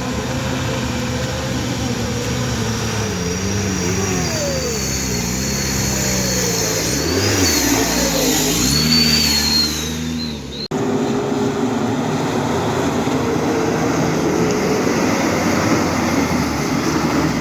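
Heavy truck engine revving under load, its pitch rising and falling repeatedly for several seconds. It breaks off sharply about ten seconds in, and a steadier engine noise follows.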